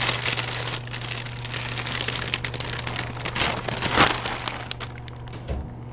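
Plastic cereal bag crinkling and rustling as it is handled, loudest about four seconds in, then dying away.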